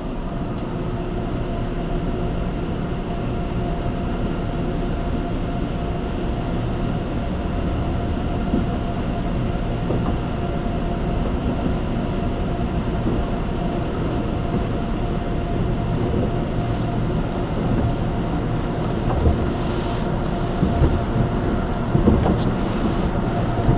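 Automatic car wash heard from inside the car's cabin: a steady mechanical rumble and hum of the wash machinery with water and foam spraying over the body and glass. Near the end, a few short knocks as the wash gear works over the windshield.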